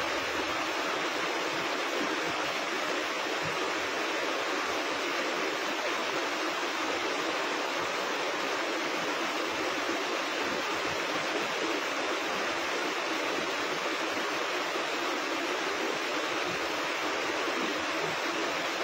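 River water rushing: a steady, unbroken flow noise.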